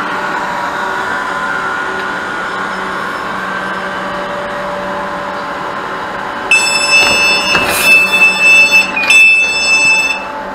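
South Western Railway Class 458 electric train standing at the platform, its motors and equipment giving a steady whine. About six and a half seconds in, a loud, high-pitched door warning tone starts and sounds steadily for about four seconds as the doors open, with a short break and a couple of knocks.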